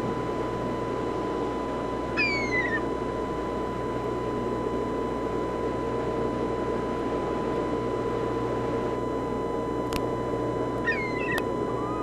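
Seagull calls: one short call sliding down in pitch about two seconds in, and another brief call near the end, over a steady hiss.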